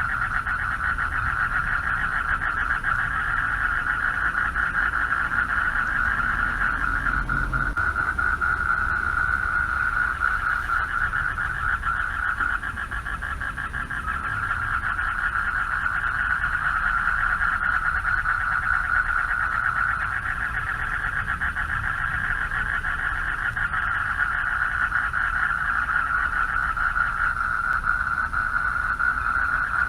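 Chorus of many male frogs calling for mates at a pond, a dense, fast-pulsing trill that goes on without a break and eases briefly about halfway, over a low rumble.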